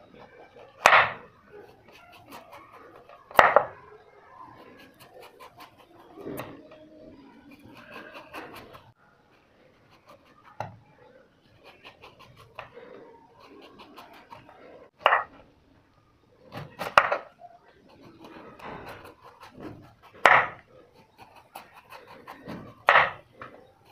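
Chopping on a wooden cutting board: about six sharp, loud chops at uneven intervals, several seconds apart, with quieter knocks and scraping between them.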